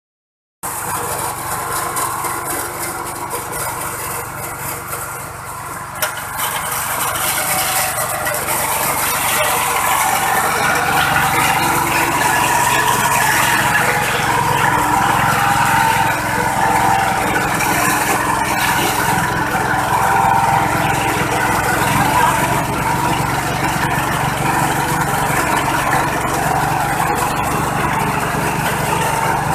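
Stainless-steel disk mill running and grinding dry chunks into powder: a steady machine whir with a grinding rasp. It gets louder a few seconds in and then holds steady.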